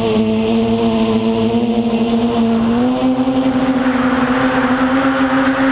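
Brushless motors and propellers of a QAV540G quadcopter (Tiger Motor 2216 800kv motors, Graupner 10x5 props) humming steadily in flight, heard from the onboard camera. The pitch rises a little about three seconds in as throttle increases, and a rushing hiss builds from about four seconds in.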